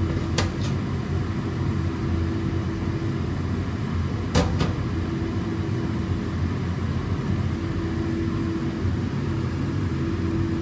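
A steady low mechanical rumble with a faint steady hum. Two short, sharp clicks come about half a second and about four and a half seconds in.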